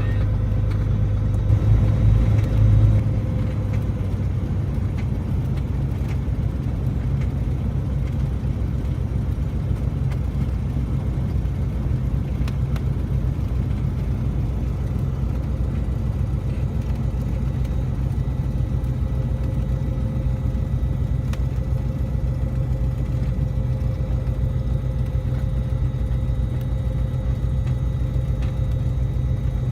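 Cessna 207's six-cylinder piston engine running steadily, with a brief louder rumble about two seconds in.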